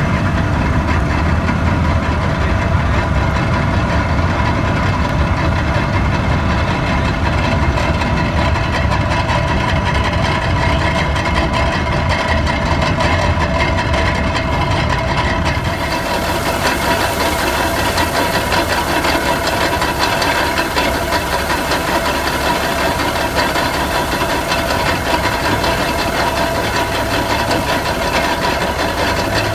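A steady, low engine idle. About halfway through it changes to a belt-driven wooden threshing machine running, with a brighter hiss as straw sheaves are fed into its drum.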